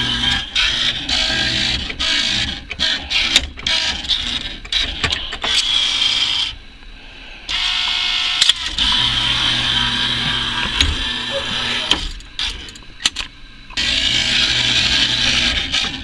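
Claw crane machine's small electric motors whirring in stops and starts as the claw is moved, over arcade noise; the sound drops away twice for a second or two.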